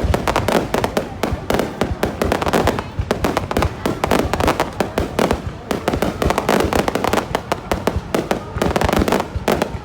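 Fireworks display going off in a dense, continuous barrage of sharp crackling bangs, many a second, with voices of onlookers underneath.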